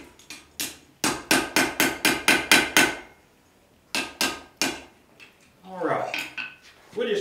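Blacksmith's hammer striking a red-hot piece of horseshoe iron on the anvil to straighten it. A quick run of sharp blows, about four or five a second, is followed by a pause of about a second and then three more blows.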